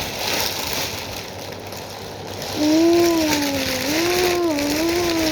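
Plastic packaging rustling and crinkling as a large pop-it fidget toy is unwrapped. About halfway through, a long, slowly wavering voice-like note starts.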